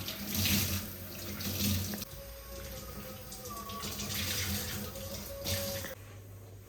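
Water running from a tap into a sink, swelling and easing several times, then shut off abruptly near the end.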